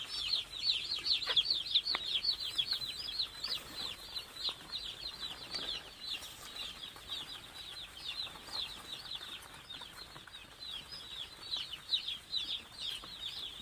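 A brooder full of day-old chicks peeping nonstop, a dense chorus of high, short peeps that each fall in pitch, several overlapping every second. The keeper says the chicks are feeling the cold despite the gas brooder, and loud, constant peeping is how chilled chicks call.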